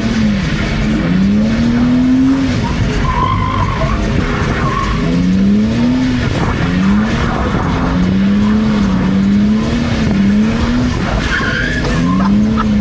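BMW E46 engine revving up and down over and over as the car is drifted on a wet road, with short tyre squeals about a third of the way in and again near the end.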